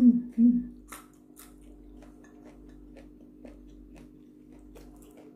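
Biting into and chewing a raw yardlong bean close to the microphone: a few crisp crunches, then irregular soft chewing clicks.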